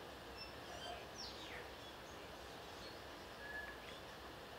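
Faint background of wild birds chirping over a quiet steady hiss: a few short high chirps and one falling whistle about a second in.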